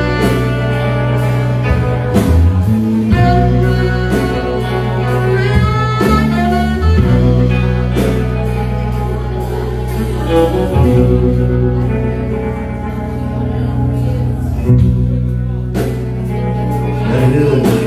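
Live band playing loud through a club PA: electric guitar, bass and drums with a sung lead line bending in pitch over steady bass notes.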